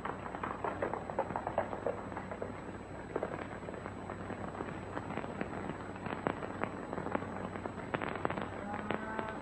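Horses' hoofbeats on a trail: a run of irregular knocks and clatters, over the hiss and hum of an old film soundtrack.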